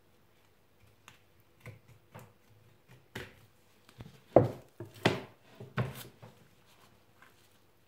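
Knife and gloved hands working a roe deer saddle on a wooden cutting board while the loin is cut free of the bones: scattered short knocks and scrapes, louder and closer together in the second half.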